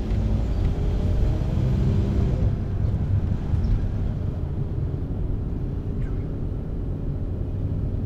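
Motor vehicle driving on a road, a steady low rumble of engine and road noise.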